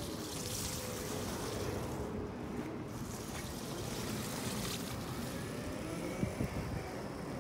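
Segway personal transporter running under a rider, its drive motors whining faintly and wavering up and down in pitch as it turns, over a steady rush of wind on the microphone.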